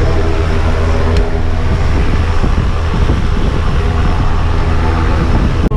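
Single-engine light aircraft's piston engine and propeller running loud and steady, heard from inside the cabin with the side door open.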